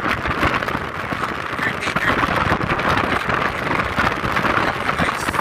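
Steady rushing road and wind noise of a taxi driving at highway speed, heard from inside the car, with a dense crackle of wind buffeting the phone's microphone.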